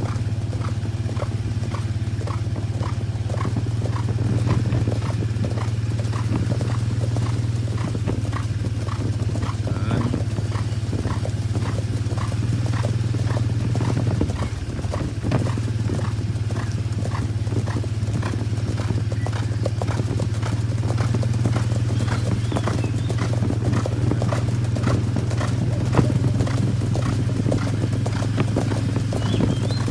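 Hoofbeats of three horses cantering together on a hard road, a steady rolling clip-clop. A steady low drone runs underneath.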